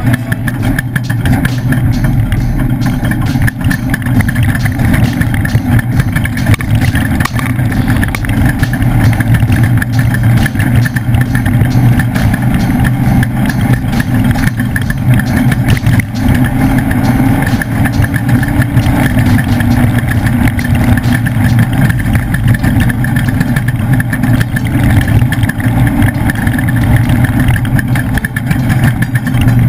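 Leaf-sprung Ford desert race truck's engine running loud and steady under race load through a lap.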